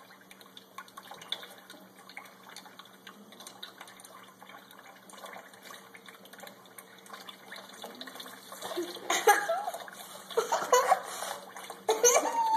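Thin stream of tap water trickling into a stainless-steel sink while ducklings paddle and splash in the shallow water. From about nine seconds in, louder bursts of a person's voice come over it.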